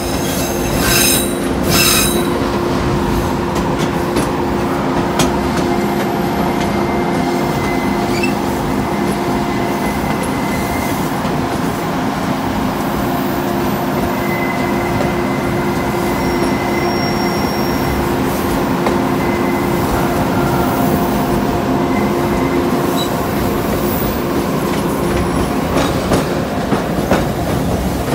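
Narrow-gauge mountain passenger train rolling through a tight curve: a steady rumble from the cars, with the steel wheels squealing against the rail in several long, held tones. A few sharp clacks come near the end.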